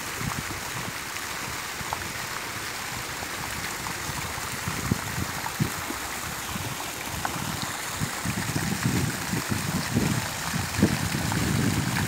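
Fountain jets splashing steadily into a pond, a continuous rush of falling water, with scattered low bumps growing more frequent in the second half.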